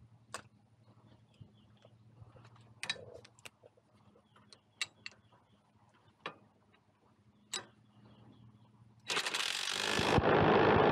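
Scattered sharp metallic clicks and clinks of a socket and wrench working on steel hardware while a lift arm bracket is bolted onto a tractor lift arm. About two seconds before the end, a loud rushing noise starts and runs on.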